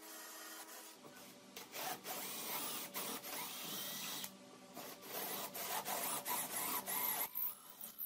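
A drill press boring a large hole into a wooden block, the bit cutting through the wood in rough, uneven strokes over the motor's steady hum. For about the first second, a cordless drill runs as it bores through an aluminium channel.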